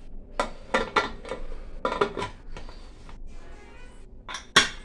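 Aluminium pressure cooker lid being fitted and closed onto the pot: a quick series of metal clanks and scrapes, then two sharper clacks near the end, the loudest as the whistle weight is set on the vent pipe.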